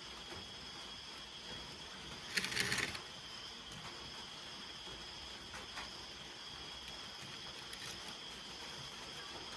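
A steady, high insect chorus with two constant shrill tones, like crickets trilling. About two and a half seconds in, a brief loud rustling or scraping noise.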